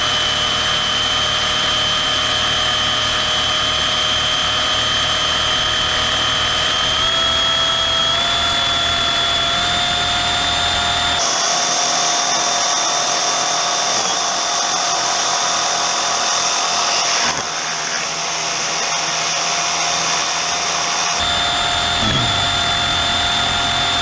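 Hobbywing 4274 brushless motor of an Arrma Typhon TLR 1/8 buggy held at full throttle, spinning its road tyres in a burnout: a loud, steady high-pitched whine that creeps slightly higher in pitch, with sudden changes in tone a few times.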